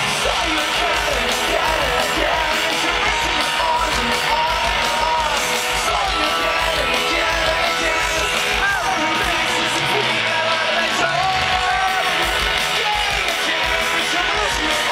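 Live rock band playing loudly in an arena: electric guitars, drums and sung vocals, heard from within the crowd.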